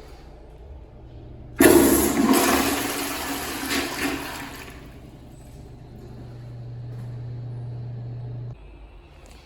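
Toilet flushing: a sudden loud rush of water starts about a second and a half in and runs strongly for about three seconds, then dies down to a quieter flow.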